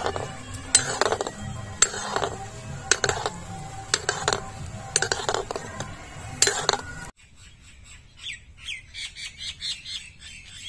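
A steel ladle scraping and knocking against an iron kadhai about once a second as gulab jamun balls are stirred in frying oil. About seven seconds in this stops abruptly, and birds chirp in quick, repeated calls, quieter than the stirring.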